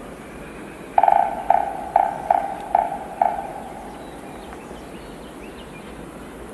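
Six quick, evenly spaced pitched knocks, each ringing briefly, over a steady rushing hiss.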